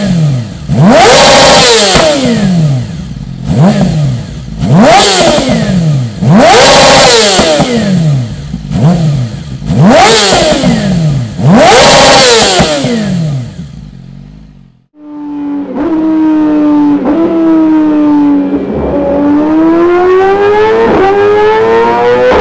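Yamaha YZF-R6's inline-four engine revved in sharp throttle blips, about one every two seconds, each rising quickly in pitch and falling back. After a sudden cut about fifteen seconds in, the engine runs steadily, its pitch dipping slightly and then climbing steadily toward the end.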